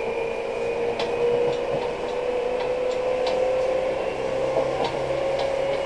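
Seibu New 2000 series electric train running, its motor whine rising slowly and steadily in pitch over steady running noise, with a few light clicks.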